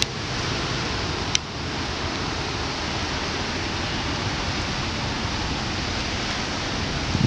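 Steady, even hiss of water from rain and standing floodwater, with no breaks. A single brief click about a second and a half in.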